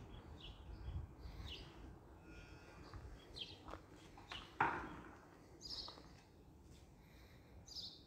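Birds chirping faintly, short high calls every second or so. A single sharp knock about four and a half seconds in is the loudest sound.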